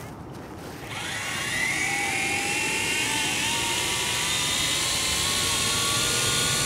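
Quadcopter drone's electric motors and propellers spinning up about a second in, the whine rising in pitch and then holding a steady, several-toned buzz.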